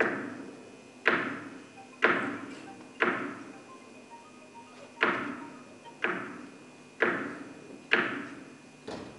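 Gavel knocks on wood, echoing in a large hall, about one a second: four, a short pause, then four more and a fainter last one.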